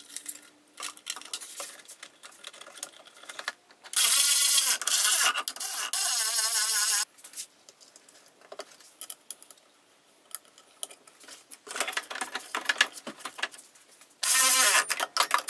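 A 3D-printed ASA plastic intake part being handled and pushed into place in an engine bay: scattered clicks and knocks of hard plastic, with louder stretches of plastic scraping and rubbing about four to seven seconds in and again near the end.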